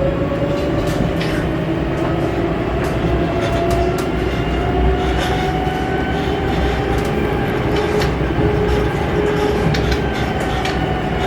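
C2-class (Alstom Citadis) tram running, heard from inside: its traction motor whine rises in pitch through the first several seconds as it gathers speed, then holds steady. Underneath are a constant wheel rumble and scattered clicks from the track.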